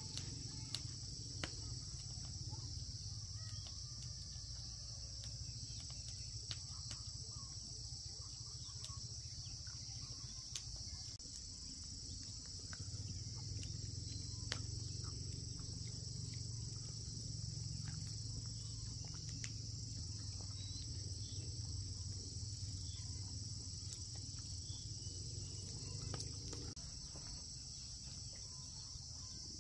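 A steady, high-pitched chorus of insects over a low rumble, with scattered faint clicks.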